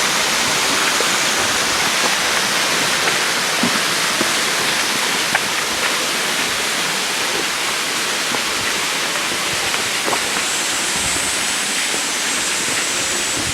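Waterfall splashing steadily, with a few faint clicks over the rush of water.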